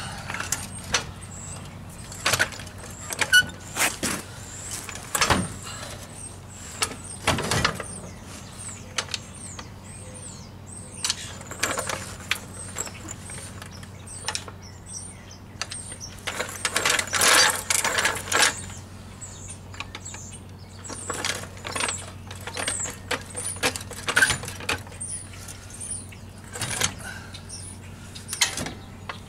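Scattered metal clanks, knocks and clicks from hand tools and parts on a Jeep Wrangler YJ rear axle as it is fitted, with a dense run of rapid clicking and rattling about 17 seconds in.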